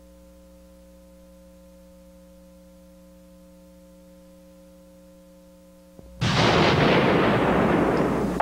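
A faint steady electrical hum, then about six seconds in a sudden loud explosion whose noise dies away slowly over the next two seconds.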